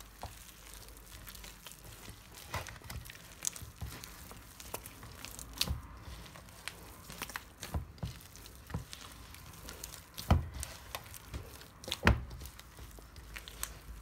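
Soft, sticky pizza dough being mixed and kneaded by hand in a stainless steel bowl: irregular squelching and slapping, with a few sharper knocks, the loudest about ten and twelve seconds in.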